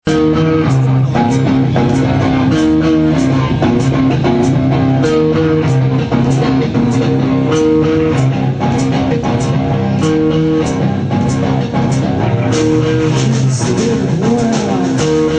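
Rock band playing an instrumental passage: a repeating electric guitar riff over bass guitar and drum kit, with a steady beat of cymbal strokes a little under two per second. It cuts in suddenly at full volume.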